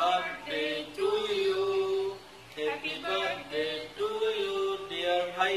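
A man singing unaccompanied, in short phrases with long held notes.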